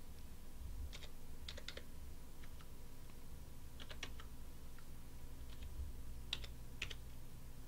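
Computer keyboard keys pressed one at a time, a few sharp clicks at slow, uneven intervals, over a faint low steady hum.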